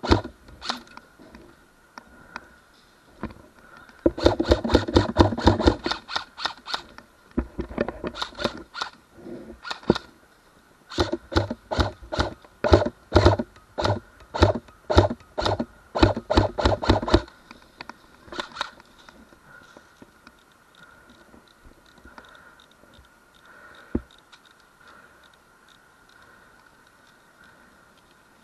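Airsoft rifle firing rapid single shots, sharp clicks coming a few per second in two spells, then stopping.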